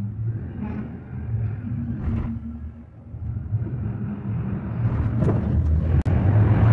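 Cable car gondola riding along its cable, heard inside the cabin as a steady low rumble. It grows louder in the second half, with a few sharp clacks as the cabin passes a support tower.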